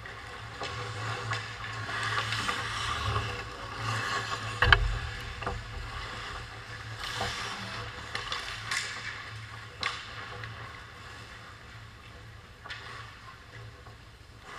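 Hockey skates scraping and carving on the ice close to the goal, with sticks and puck clacking; one loud sharp knock about a third of the way in and a few lighter clacks after, over a steady low hum.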